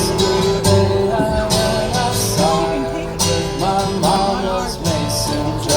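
Live band playing a country-style tune, with held melody notes over a steady bass and a regular beat.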